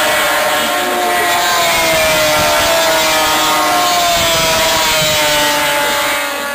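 Racing snowmobile engines running at high revs: a loud, high whine that slowly falls in pitch over several seconds as the sleds pull away, dropping in level near the end.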